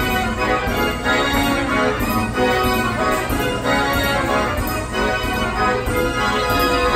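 Carousel band organ playing a tune.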